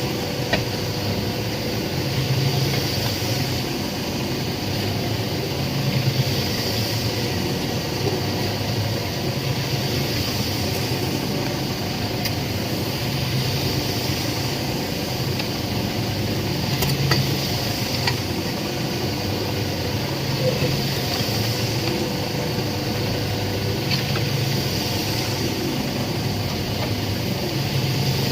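Concrete mixer running steadily, its rumble and hiss swelling and fading about every two seconds as it turns, with an occasional faint clank.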